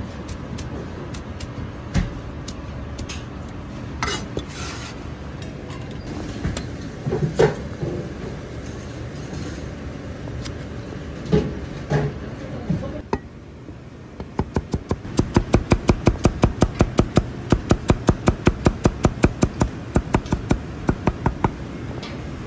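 Chinese cleaver chopping on a plastic cutting board. Scattered single chops through the first half, then from a little past halfway a fast, even run of chops, about five a second, as ginger is sliced thin.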